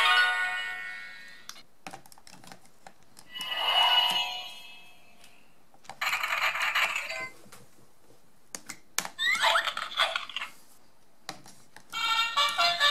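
A magic wand sound book playing short, tinny electronic chimes and jingles through its small speaker, a new one each time the plastic wand touches a sound button on the page. About five separate bursts come a few seconds apart.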